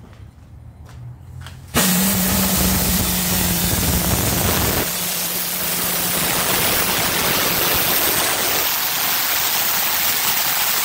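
Steam boiler's pop-off safety valves lifting suddenly about two seconds in, then steam blowing off with a loud, steady hiss, a low steady tone underneath for the first few seconds. The boiler has reached the valves' set pressure of about 65 psi.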